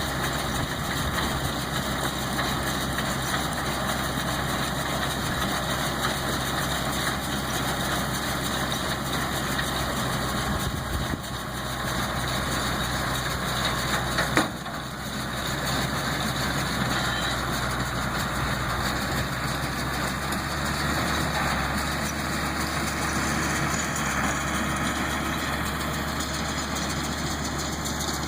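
Tractor engine running steadily while driving a New Holland 644 round baler in the hay. There is a short sharp knock about halfway through.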